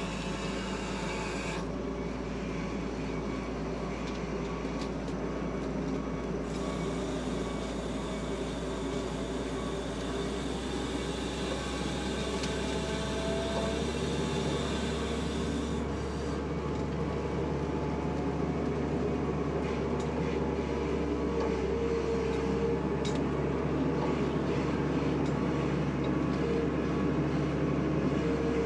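Case 621C wheel loader's diesel engine running steadily as the loader drives along carrying an old car, growing slightly louder near the end.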